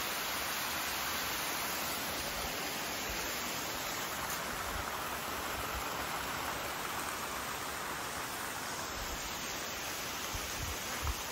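Steady rushing of the Stuibenfall waterfall, an even roar of falling water. A few soft low bumps come near the end.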